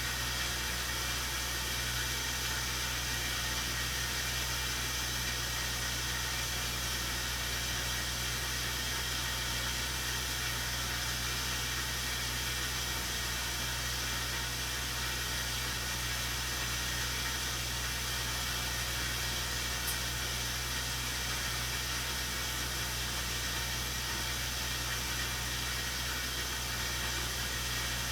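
Snow blower engine running at a steady speed, a constant low drone under an even hiss.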